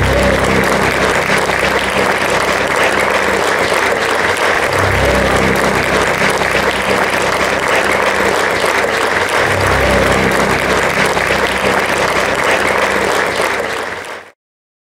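Theatre audience applauding, with low instrument notes sounding under the clapping every few seconds; the sound cuts off abruptly near the end.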